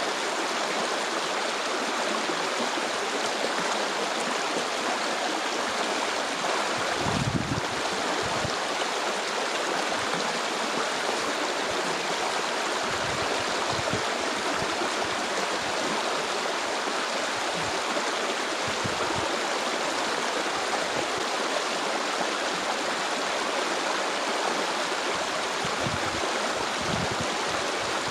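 Stream of flowing water running steadily, an even rushing. A single knock about seven seconds in and a few brief low thuds break in over it.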